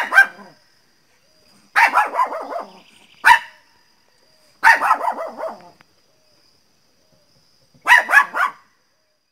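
Small dog barking sharply in about five separate bursts with silent gaps between them, some bursts a single bark and the last a quick volley of two or three.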